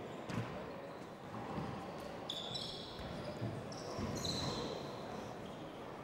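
A handball rally: the ball is struck by hand and smacks off the walls and wooden floor several times. Sneakers squeak sharply on the court floor twice, about two and a half and four seconds in, as the players chase and dive for the ball.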